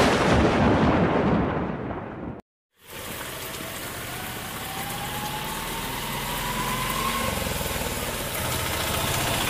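A loud thunder rumble fading away, then after a brief cut, steady rain with a three-wheeled auto-rickshaw's small engine running as it approaches on the wet road, its pitch rising slowly.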